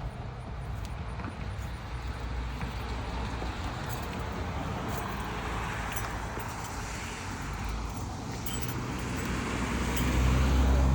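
An engine running steadily, growing louder and deeper near the end.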